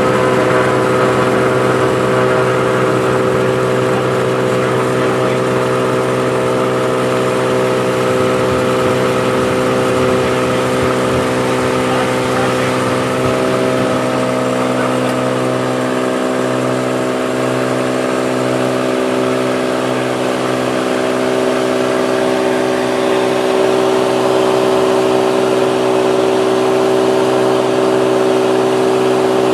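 Lake Renegade 250 amphibian's six-cylinder piston engine and pusher propeller at takeoff power, heard inside the cockpit: a loud, steady drone made of several even tones. About halfway through, the lowest tone beats slowly for a few seconds.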